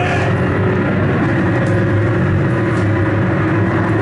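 Live harsh noise music from a table of electronics played through a PA: loud, dense, unbroken distorted noise, heaviest in the low end, with no beat.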